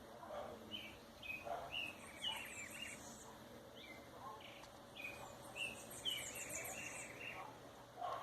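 Birds chirping: short calls repeated throughout, with two spells of rapid high trills, one about two seconds in and one about five and a half seconds in.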